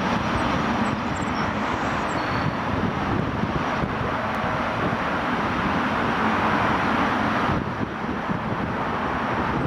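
Boeing 777-300ER's GE90 jet engines at taxi power, heard from behind the aircraft as a steady jet whoosh with no distinct pitch.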